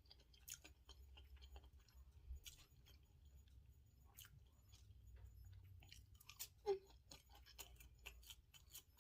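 Faint chewing of fries, with small mouth clicks and crunches over a low steady hum; the clicks come thicker near the end, with one louder mouth sound about two-thirds of the way through.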